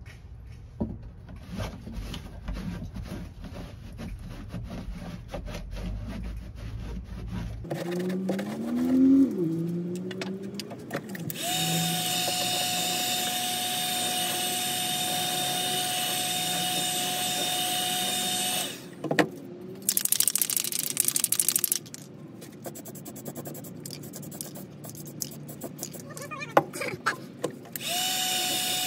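A heat gun running with a steady whine and rushing air, switched off partway through and switched on again near the end. Before it come handling clicks and scraping on the steel floor pan. In the gap, a spray can is shaken with a short, fast rattle.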